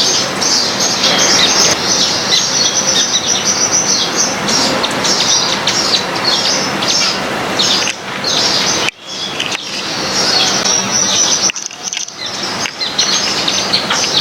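A busy chorus of small garden birds chirping rapidly and without pause, high-pitched, over a rushing noise beneath. Everything drops out briefly twice in the second half.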